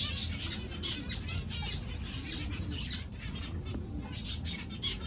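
Many small aviary birds chirping at once: short, high cheeps scattered irregularly, with a soft low dove-like cooing underneath.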